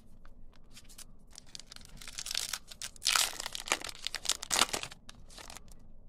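Foil trading-card pack wrapper and cards crinkling and rustling in hand, with short tearing-like spells. The loudest come about three seconds in and again near four and a half seconds.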